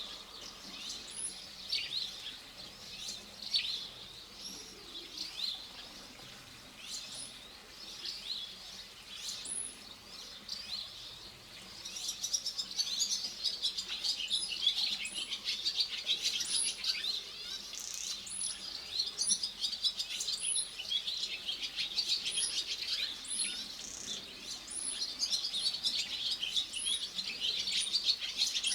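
Small birds chirping and twittering, much busier and louder from about twelve seconds in, with short, very high peeping notes repeated over it.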